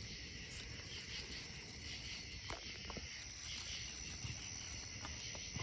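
Night insects, crickets or similar, chirring in a steady faint chorus, with a couple of small clicks a little past halfway.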